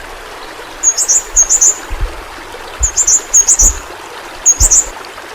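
Pentis pelangi (yellow-rumped flowerpecker) calling: short, sharp, high chirps in quick clusters, repeated several times. A steady watery hiss runs beneath, with a few dull low thumps.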